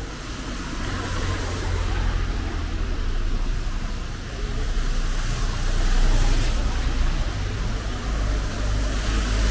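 Road traffic: a car's engine and tyres passing on the street, swelling to its loudest about two-thirds of the way in, over a steady low rumble.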